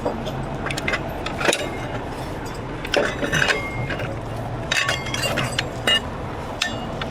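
Sharp metallic clinks and clanks of steel rigging hardware being handled, several in irregular clusters, over the steady low hum of an idling truck engine.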